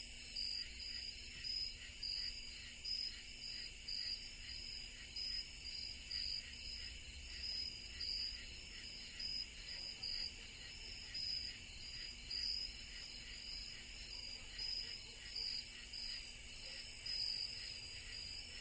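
Crickets chirping faintly at night, a regular chirp a little more than once a second over a steady high-pitched insect drone.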